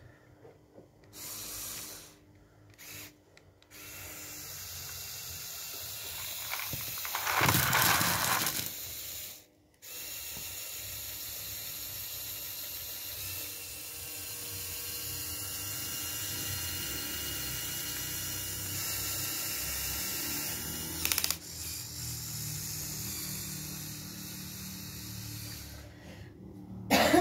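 Small electric motors and plastic gears of a motorized Lego Technic model whirring. About seven seconds in, a bucketload of plastic Technic pieces tips out and clatters onto the carpet for a couple of seconds, the loudest sound. After that the gear whirr runs steadily.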